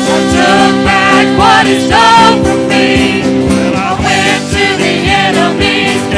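Worship music: singing voices over sustained chords and a steady beat.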